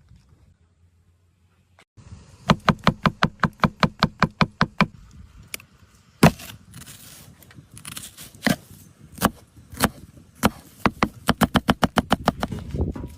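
Repeated sharp strikes on a kitchen cutting board: a fast even run of about five knocks a second, a few single louder knocks, then a second fast run near the end.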